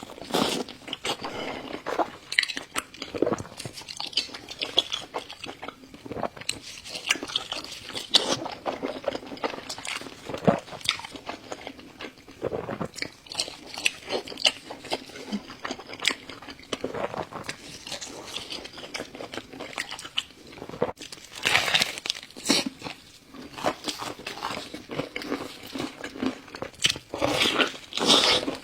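Close-miked eating of crispy fried chicken-leg rolls: repeated crunchy bites and chewing of the crisp coating, with louder crunches about two-thirds of the way in and near the end.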